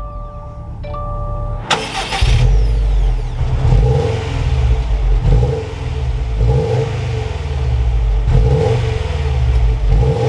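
2021 Subaru WRX STI's 2.5-litre turbocharged boxer four-cylinder starting: steady beeping tones, then the engine catches with a sudden loud burst a little under two seconds in. It then runs loudly, its revs rising and falling about every second and a half.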